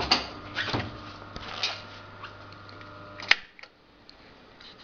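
Heavy-duty industrial sewing machine's motor humming steadily while not stitching, with a few irregular knocks and clicks. After about three seconds a sharp click comes and the hum cuts off, leaving only faint background noise.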